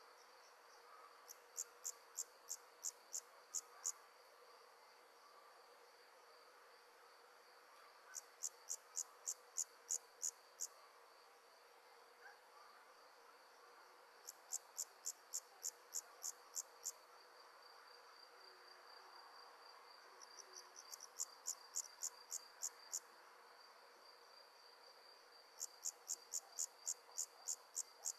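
An insect chirping in five bouts, each about eight to ten high-pitched chirps at about three a second, with a bout roughly every six seconds. A faint steady high tone runs underneath.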